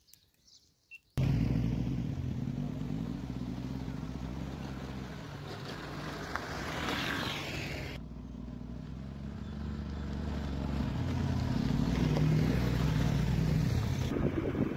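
A motor vehicle engine running steadily, starting suddenly about a second in after near silence, with an abrupt change in its higher sound about eight seconds in.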